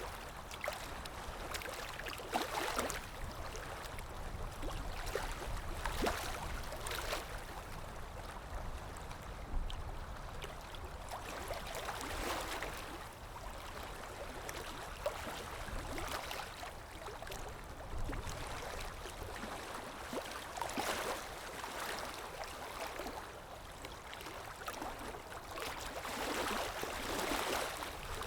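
Sea waves washing in and drawing back, each wave swelling into a hiss every four to six seconds over a steady wash of water.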